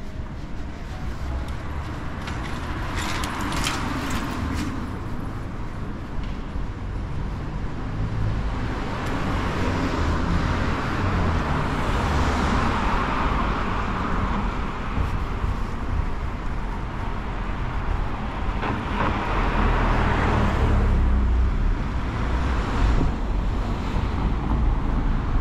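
Street traffic: cars passing close by, their tyre and engine noise swelling and fading twice, once around the middle and again near the end, over a steady low rumble.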